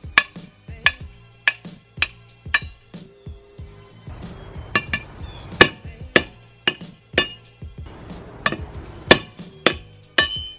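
Big hammer striking a Ford Bronco rear axle shaft's flange to drive out the wheel studs: sharp metal-on-metal blows that ring, coming irregularly about one to two a second, with a short lull three to four seconds in.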